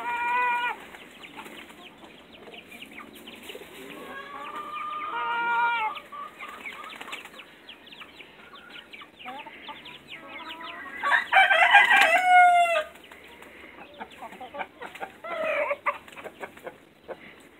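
Backyard chickens calling, with a rooster crowing in drawn-out calls, the longest about two seconds and the loudest a little past the middle, over the fluttering of pigeons' wings.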